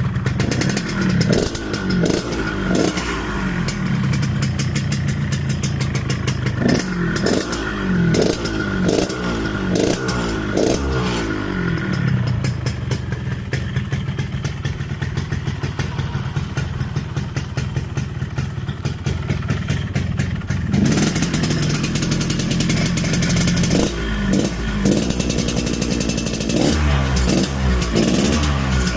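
Yamaha RX-King's two-stroke single-cylinder engine running through its standard exhaust, with a crisp two-stroke sound. It is blipped in repeated short revs, settles to a steady idle about twelve seconds in, and is revved again from about twenty seconds on.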